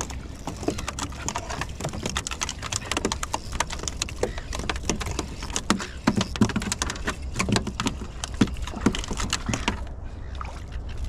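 Spinning reel being wound while a small tailor is brought in to a fishing kayak: rapid, irregular clicks and knocks over a low steady rumble.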